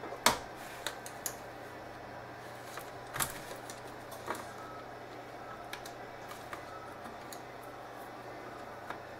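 Scattered small clicks and taps of plastic pry tools against the Samsung NP355V5C laptop's chassis and a ribbon-cable connector as it is worked loose. The loudest tap comes about a quarter second in and another just after three seconds, over a faint steady hum.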